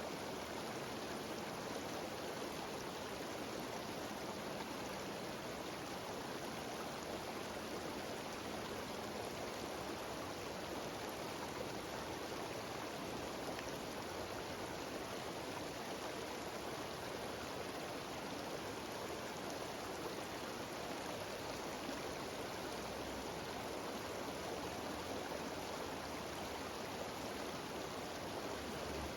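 Steady rushing of a cascading mountain stream and waterfall, water pouring over rocks without a break.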